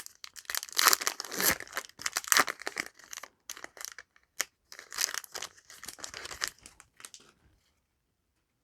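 A Yu-Gi-Oh! booster pack wrapper being torn open and crinkled in the hands, a run of rustling and crackling bursts that stops about seven and a half seconds in.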